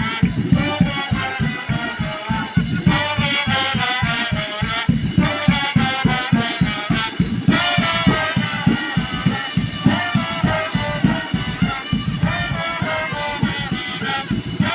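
A brass band playing live: horns carry a melody over a quick, steady beat in the low end.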